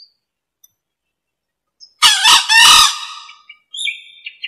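Male green junglefowl giving its short, harsh crow once, about two seconds in, in two or three quick pulses. Near the end come a series of short, high chirping notes.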